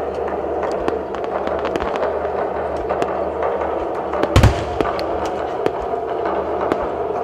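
Aerial fireworks display: many sharp pops and crackles of bursting shells over music, with one loud boom about four seconds in.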